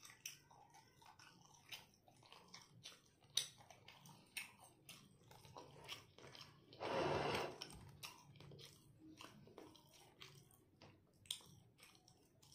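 Close-miked mouth sounds of a person chewing pork belly adobo and rice: wet chewing with many small clicks. A brief louder rush of noise comes about seven seconds in.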